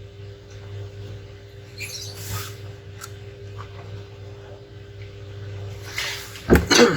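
Steady electrical hum throughout, with a few faint scrapes and ticks. Two loud, short knocks or rattles come close together near the end.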